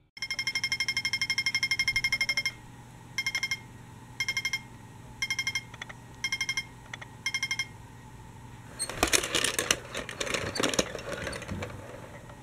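Toy traffic light's crossing signal beeping. A fast run of electronic beeps plays while the walk light is green, then short bursts of beeps come about once a second after it turns red. Near the end there is a rattling clatter from the toy tram rolling over the plastic track.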